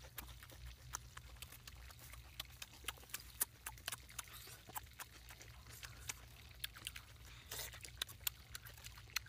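Close-up chewing and lip-smacking of a person eating with an open mouth: irregular wet clicks and crunches, several a second.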